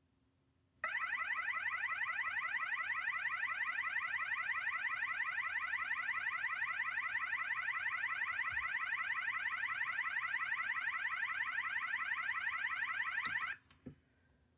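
System Sensor mass-notification fire alarm horn sounding its warble tone, a rapid, continuous up-and-down alternation in pitch. It starts about a second in and cuts off abruptly near the end.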